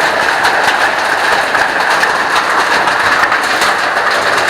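Waterfall pouring and splashing close by: a steady rush of falling water with dense fine spattering.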